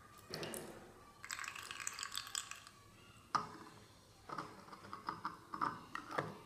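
Light clicks, rattling and scraping of a hard 3D-printed plastic cup being handled against its plastic base. There is a dense scraping patch early on, a sharp click about midway, and a run of smaller knocks near the end.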